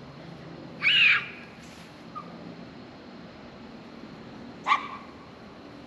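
A puppy giving two short, high yips, one about a second in and a sharper one near the end.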